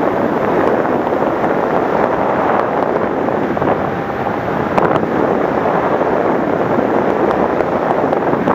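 Steady, loud rushing wind noise buffeting the microphone.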